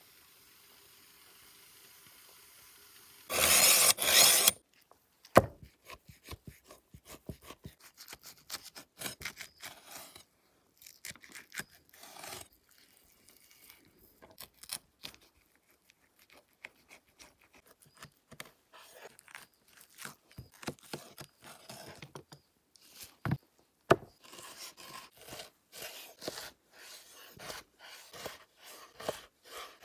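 Large chef's knife slicing raw beef on a wooden cutting board: scattered scraping strokes and light clicks, with a couple of sharper knocks of the blade against the board late on. A brief loud rush of noise comes about three seconds in.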